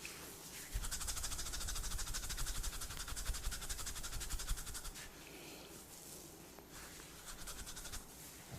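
Rapid, even scrubbing strokes of hands rubbing through hair and scalp in a head massage, keeping a fast steady rhythm for about four seconds before easing into softer, slower rubbing.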